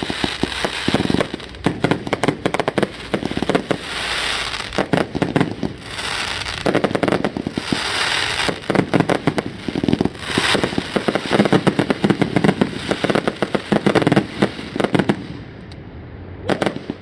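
Fireworks going off in rapid succession: dense crackling and popping, broken by brief hissing stretches, with a short lull near the end.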